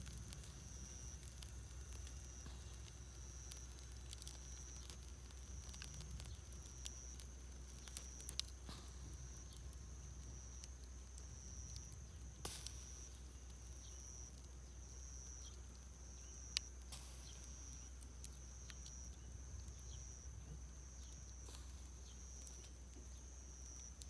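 Wood campfire crackling softly under skewered pork, with scattered small snaps and a few sharper pops, the loudest about two-thirds of the way through. A steady high hiss runs underneath.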